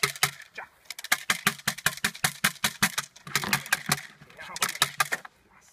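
Rapid sharp clacking of a split bamboo stick rattled by a ringsport helper to stir up a puppy, about five or six clacks a second with two short breaks, stopping shortly before the end.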